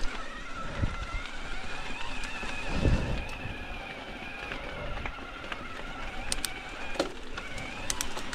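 Mountain bike rolling along a dirt trail: tyre and drivetrain noise with scattered sharp clicks and rattles, a steady high-pitched whine underneath, and a low thump about three seconds in.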